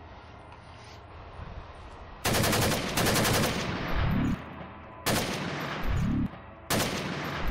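Automatic gunfire in several bursts of rapid shots, starting about two seconds in, each burst lasting roughly half a second to a second, with deep booms in between.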